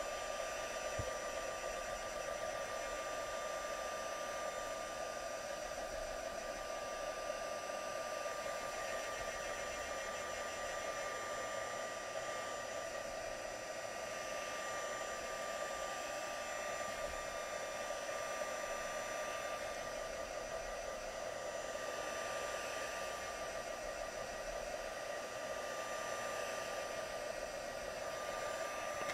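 Stampin' Up! heat tool (a handheld craft heat gun) running steadily, blowing hot air to dry wet watercolour paper: an even rush of air with a steady whine over it.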